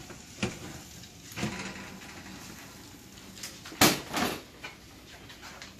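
A few short knocks and clatters of a metal baking sheet and the oven as the pan is lifted out of a hot oven, with the loudest knock about two-thirds of the way through.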